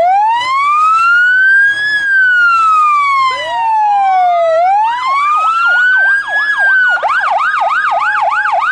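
Loud electronic fire truck sirens, more than one at once. A slow rising and falling wail is joined about halfway through by a fast yelp. Near the end they switch to a quicker warble and a two-note hi-lo tone.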